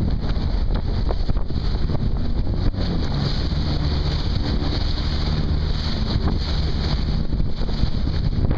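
Sea-Doo jet ski engine running under heavy wind buffeting on the microphone, with water rushing and splashing as it crosses rough sea.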